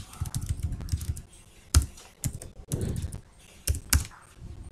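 Typing on a computer keyboard: a run of key presses with a few sharper, louder keystrokes, one a little under two seconds in and two close together near the end.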